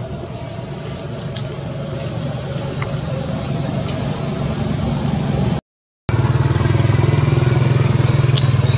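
A motor engine running steadily and growing louder, with a brief dead gap in the audio about five and a half seconds in, after which it carries on louder.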